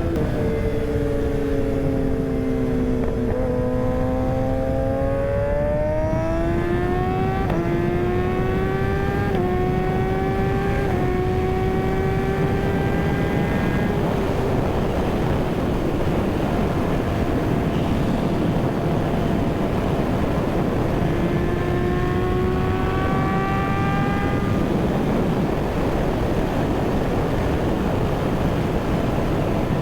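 Kawasaki ZX-6R inline-four sport-bike engine under way: its pitch falls over the first few seconds, then climbs again in several steps, fades to a steadier note, and rises once more later on. A steady rush of wind and road noise runs underneath.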